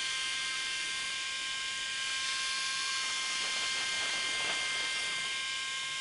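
Wood-Mizer LT70 portable band sawmill cutting along a beetle-killed pine log: a steady high whine over hiss from the running band blade and head. Right at the end the whine starts to fall in pitch.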